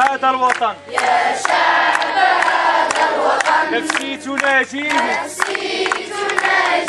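A large group of children and young scouts singing and chanting together loudly, many voices at once.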